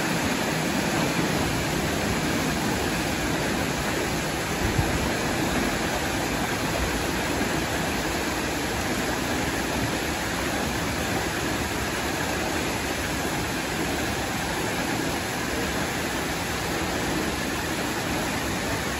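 Water rushing steadily through the sluices in the lock gates as the lock chamber fills, the churning inflow that lifts a boat in a canal lock.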